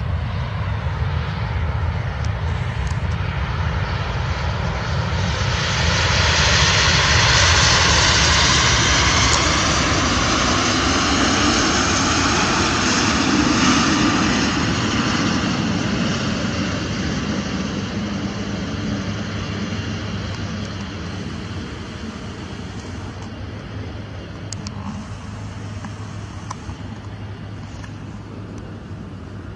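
Boeing 777F freighter's GE90 turbofan jet engines running as the aircraft rolls past on the runway. The jet noise swells about six seconds in, stays loud for several seconds with slowly gliding tones, then fades gradually.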